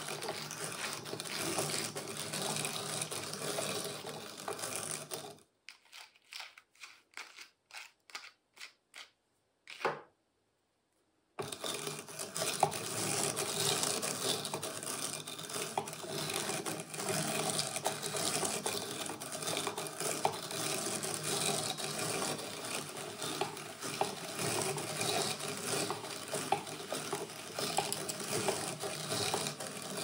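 Hand-cranked drum carder turning, its wire-toothed drums combing cotton fibres with a continuous dry rustle. In the middle it breaks into a run of short separate strokes and then a brief silence before the steady rustle resumes.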